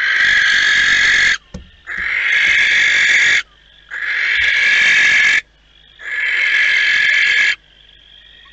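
Barn owl giving four long, harsh hissing calls, each about a second and a half, with short pauses between them.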